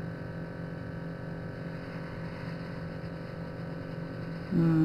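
Steady low electrical hum at a fixed pitch, with a voice starting just before the end.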